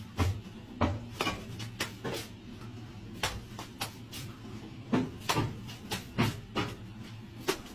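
A hand shovel scooping wet mortar, and mortar slapping onto a brick wall: a string of irregular sharp scrapes and slaps, about two a second, over a low steady hum.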